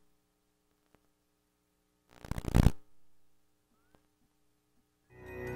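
A brief burst of rapid rustling clicks about two seconds in. Music fades in near the end.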